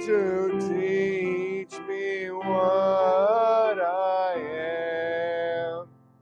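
A hymn sung with piano accompaniment, one man's voice leading loudest in long held notes; the singing ends on a held note about six seconds in.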